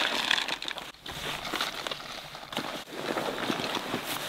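Rustling of nylon outdoor gear as a backpack is packed and a down sleeping bag is handled, with shuffling steps on gravel.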